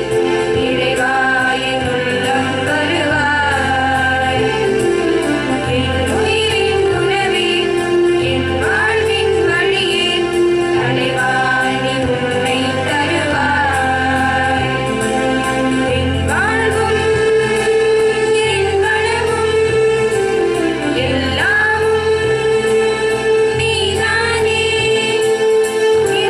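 A group of women singing a song together into microphones: one continuous melody with long held notes and sliding pitch.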